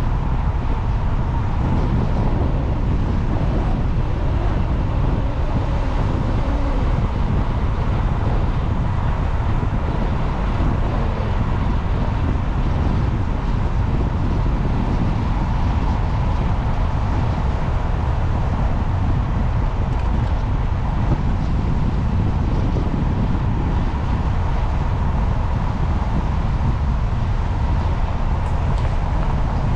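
Steady low rumble of a car driving slowly along a narrow tarmac lane, tyre and engine noise with a faint steady whine over it.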